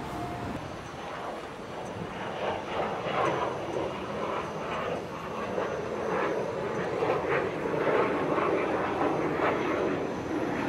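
Handheld gas torch burner flame hissing steadily, held over marshmallows in a cast iron skillet to brown them; the sound builds after the first second or two.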